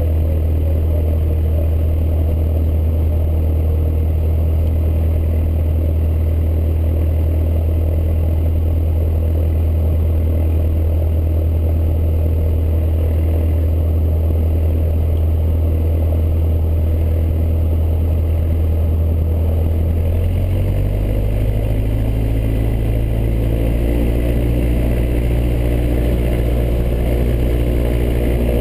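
Cessna's piston engine and propeller droning steadily, heard inside the cockpit. About twenty seconds in, the engine note shifts up in pitch and stays there.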